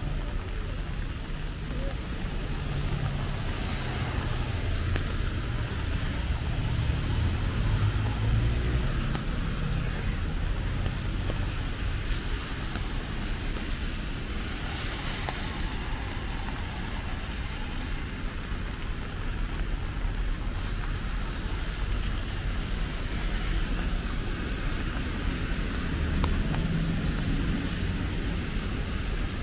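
Road traffic on a rain-wet road: a steady low rumble of traffic, with cars passing in a swell of tyre hiss about three seconds in and again about fifteen seconds in.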